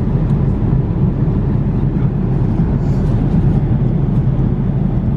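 Steady cabin noise of an Airbus A380 airliner in flight, heard from inside the cabin: a constant low rumble of airflow and engines.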